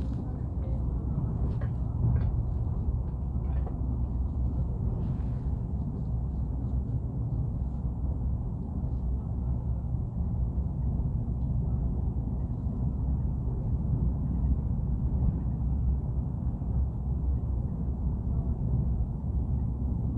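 A steady low rumbling noise, with a few faint clicks in the first few seconds.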